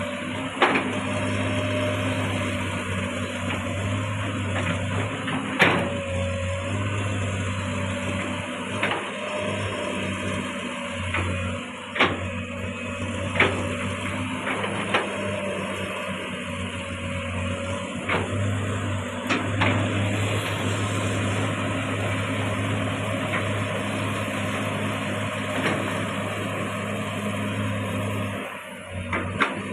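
Komatsu PC200 long-arm excavator's diesel engine running steadily under digging load, with sharp knocks and clanks every few seconds as the bucket works the soil. The engine note dips briefly near the end.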